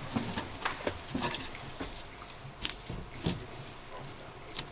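Scattered light knocks and scrapes of a fabric-covered van wall panel being handled and lifted into place against the metal wall frame.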